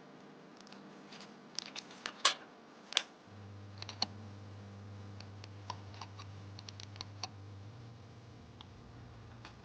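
Irregular light clicks and taps of small metal tools and parts being handled during watch repair, a couple of dozen of them and loudest around two to three seconds in. A low steady hum comes in about three seconds in.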